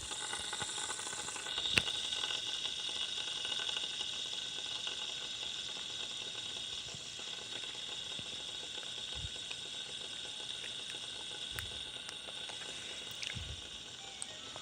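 Plain white fidget spinner spinning on its ball bearing, a steady whirring hiss that slowly fades as it spins down. A single light click about two seconds in.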